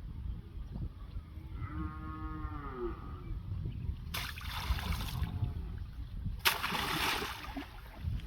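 A cow moos once, a call of about a second and a half that rises and then falls in pitch, over a constant low rumble. Later come two loud bursts of hissing noise, each about a second long.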